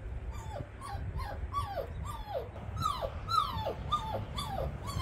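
Puppy whimpering: a run of about ten short, high cries, each sliding down in pitch, about two a second. It is a stray pup that has fallen into a water channel and cannot climb out.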